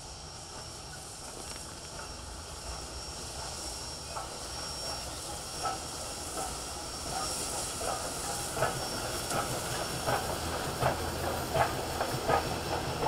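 Steam locomotive and its passenger train passing, with a steady hiss and running noise that grows louder. From about four seconds in, wheels click over rail joints, more and louder toward the end as the tender and coaches go by.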